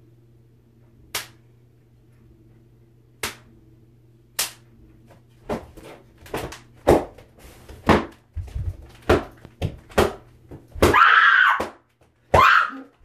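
A belt whipping a pillow: sharp slaps, a few spaced a second or two apart at first, then a quicker run of about one or two a second. Near the end come two longer, louder rushes of noise.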